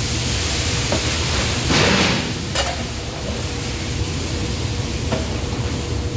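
Shredded potatoes being stirred through a large pot of boiling water with a long metal spatula: a steady bubbling hiss over a constant low rumble, with a swishing surge about two seconds in and the spatula knocking the pot a few times, sharpest about two and a half seconds in.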